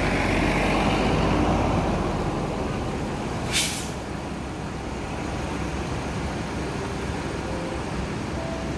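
Parked coach bus with its engine idling as a steady low rumble, and one short, sharp hiss of compressed air from its air brake system about three and a half seconds in.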